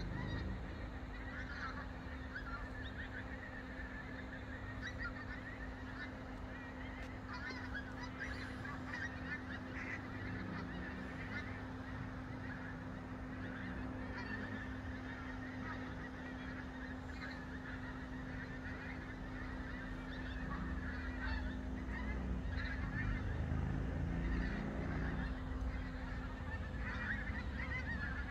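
A large flock of migrating geese calling in flight overhead: a continuous chorus of honking that grows louder in the last third, over a steady low hum.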